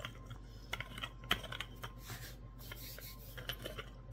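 Wooden rolling pin rolling cookie dough on a floured wooden cutting board: scattered light clicks and knocks with a short hiss a little past two seconds in.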